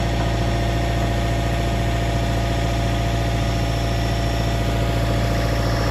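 Excavator engine running steadily at an even speed.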